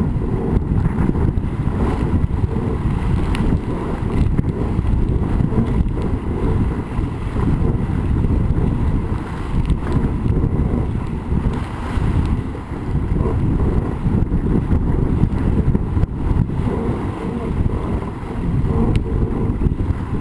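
Wind buffeting the microphone of a camera mounted low on the deck of a small racing sailboat under way, over the rush of water along the hull. The noise is deep and continuous and swells and dips in gusts.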